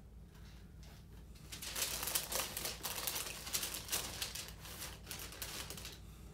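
Paper wrapping inside a sneaker box rustling and crinkling as it is handled and pulled back, starting about a second and a half in as a run of quick, irregular crackles.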